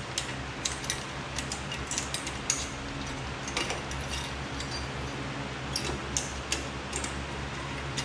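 Light, irregular metallic clicks and scrapes as a flat-blade screwdriver pries the old steel pad hardware clips off a 2006 Chevrolet Trailblazer's rear brake caliper bracket, over a steady low hum.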